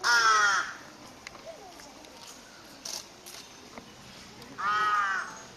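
Amur tiger cub calling twice, two loud calls each under a second long, the pitch rising then falling, about four and a half seconds apart.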